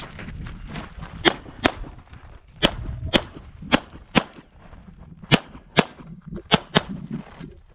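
CZ Shadow 2 9mm pistol firing about ten shots, mostly in quick pairs about half a second apart, with fainter shots between them.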